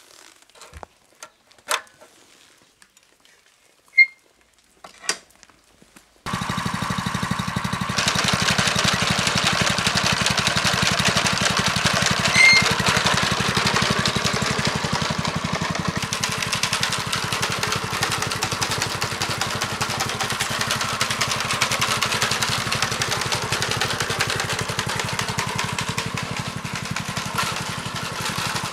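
A few clicks and knocks, then about six seconds in the small single-cylinder gasoline engine of a homemade walk-behind sickle bar mower comes in suddenly and runs steadily, a little louder from about eight seconds in.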